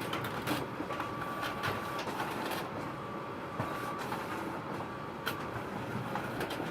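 Photocopier running: a steady mechanical whir with a faint high whine and scattered clicks.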